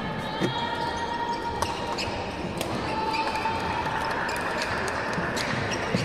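Badminton rally on an indoor court: a few sharp racket-on-shuttlecock hits, with shoes squeaking on the court floor over a steady hall murmur.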